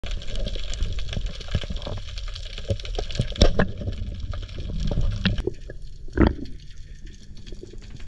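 Underwater sound heard through a diving camera's housing: a steady muffled wash of moving water with a low rumble, peppered with scattered sharp clicks and knocks, the loudest about three and a half seconds in and again about six seconds in.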